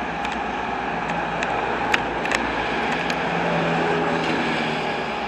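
Steady motor-vehicle engine and traffic noise, with a low hum that strengthens about three seconds in and a few sharp clicks.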